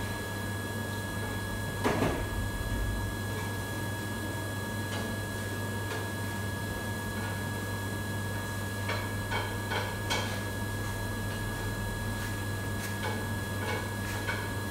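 Commercial kitchen ambience: a steady low hum with a thin high whine from the running equipment, broken by scattered clatter and clinks of cookware and utensils, a loud knock about two seconds in and a quick run of clinks around ten seconds in.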